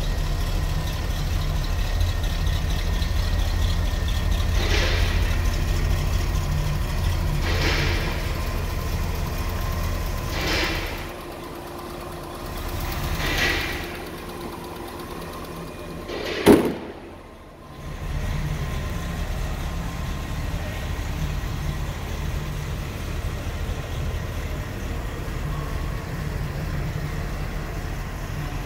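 1965 Chevrolet Corvette's fuel-injected V8 idling steadily after a cold start. Around the middle the low rumble thins for several seconds, with four brief swells about three seconds apart, and a single sharp click about two-thirds through is the loudest moment.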